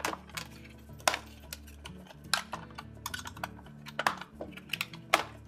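Plastic inner and outer panels of a front-load washer door clicking and snapping as a putty knife pries them apart: irregular sharp clicks, about one a second.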